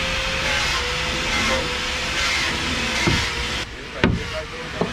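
Steady hiss of a gas torch heating a thick wooden plank to soften it for bending. It cuts off about three-quarters of the way through, followed by sharp hammer blows on a wooden wedge, the first the loudest.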